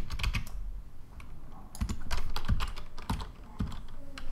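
Computer keyboard keys pressed in short, irregular clusters of clicks, as shortcut keys are tapped while working in 3D software.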